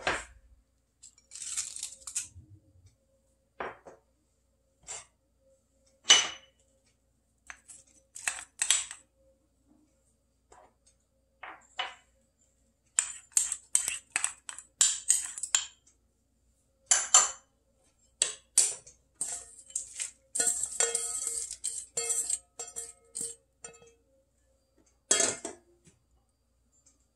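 Scattered clinks, knocks and scrapes of kitchen utensils as ingredients are added to a stainless steel pot of water: a wooden spoon scraping food out of a small bowl, and sliced vegetables and leaves dropping into the pot. A denser stretch of handling noise comes a little past the middle.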